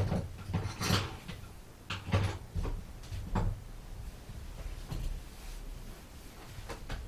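A series of irregular knocks and clunks of things being handled and set down, about half a dozen, most of them in the first three and a half seconds.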